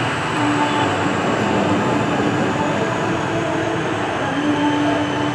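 ATR 72-600's Pratt & Whitney PW127-series turboprop engines running on the ground at low power: steady propeller and engine noise with a thin high turbine whine that falls slowly in pitch.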